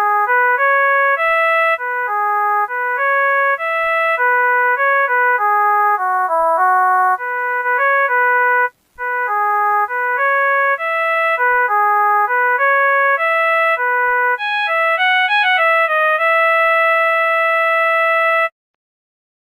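Synthesized ringtone of a NETZERO 256 4G phone: a melody of short, clean notes, played through, broken off briefly partway, then repeated. It ends in a quick trill and one long held note, then cuts off suddenly.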